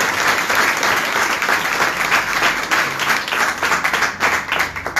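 A roomful of people applauding with steady hand-clapping that thins out right at the end.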